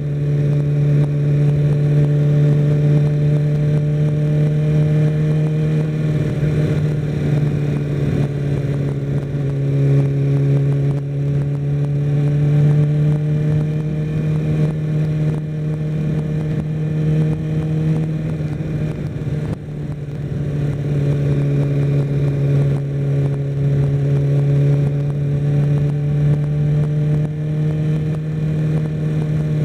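Kawasaki Ninja ZX6R's inline-four engine running under way at cruising speed, its pitch creeping up slowly and changing step a few times as the throttle and gears change, with a brief dip in loudness about two-thirds through.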